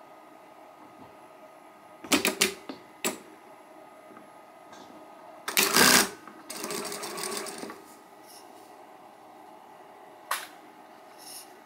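Juki sewing machine starting a seam: a few mechanical clicks, a louder clunk about halfway through, then a brief run of stitching lasting about a second, the preset reverse stitches that lock the start of the seam, and a single click near the end.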